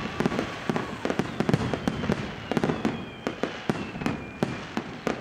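Fireworks going off: a rapid, irregular string of bangs and crackles over a steady hiss, with a faint falling whistle in the middle.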